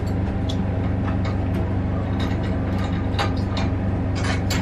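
Steady low machine hum, with scattered light clicks and scrapes from hands and a grooming tool working through a dog's coat.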